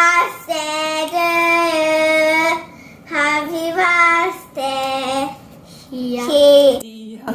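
A child singing into a handheld microphone, in phrases of long held notes with short breaks between them.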